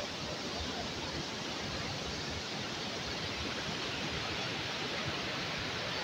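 Steady rushing of Gondichaghagi waterfall, water pouring down a rock cliff into a pool.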